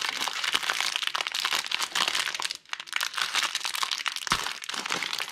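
Thin plastic bag of LEGO pieces crinkling and crackling as hands pull it open, with a short pause about two and a half seconds in.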